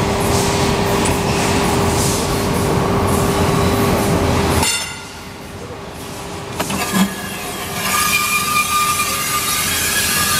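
WMW 10-tonne draw bench running: loud, steady machine noise with a constant hum that drops off suddenly about halfway through. A single knock follows, then the machine comes back up with a steady high whine.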